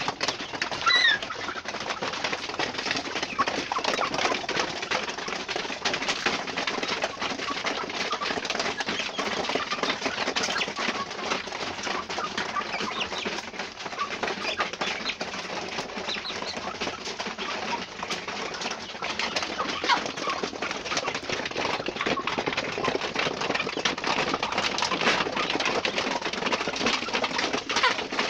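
A flock of young chickens crowded together in a coop: a steady din of calls and clucking over a dense patter of small clicks and rustling, with a couple of short high peeps about a second in.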